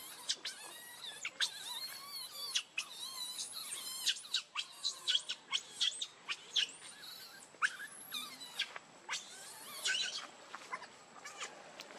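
Baby monkey crying: a rapid string of short, high-pitched squeals and chirps that glide up and down in pitch, densest through the middle and thinning out near the end.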